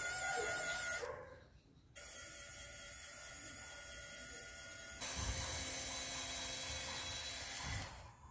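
A small electric motor whining steadily. It cuts off about a second in and starts again a second later, then runs louder from about five seconds until it stops near the end.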